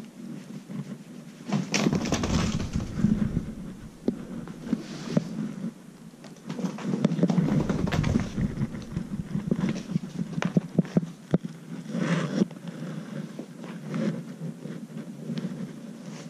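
Close handling noise: fleece clothing brushing and rustling against the microphone in uneven bursts, with scattered light taps and clicks.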